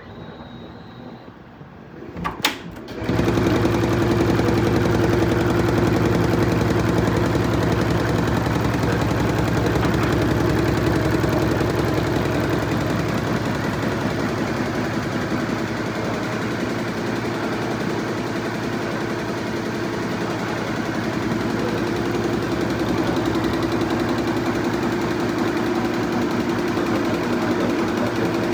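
Fuwei four-head embroidery machine starting up about three seconds in after a couple of clicks, then stitching steadily: a loud, very rapid, even clatter of needle strokes over a steady hum.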